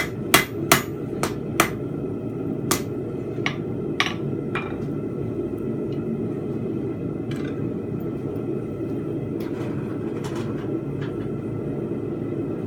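A 2 lb rounding hammer striking steel on an anvil while forging a fence peg. Ringing blows come about twice a second for the first four or five seconds, then thin out to a few lighter, scattered taps. A steady low rumble runs underneath.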